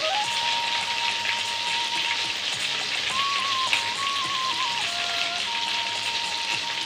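Cumin seeds and bay leaves frying in hot oil in a stainless steel kadhai: a steady sizzle of fine crackles.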